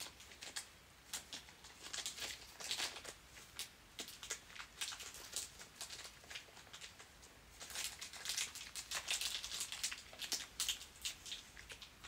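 Faint crinkling and rustling of a small plastic parts bag of bolts being handled, in irregular bouts, with a quieter stretch around six to seven seconds in.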